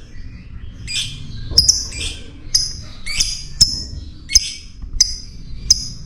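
Lovebird calling: a string of sharp, high, squeaky chirps, about one or two a second, with a raspier chattering stretch about a second in.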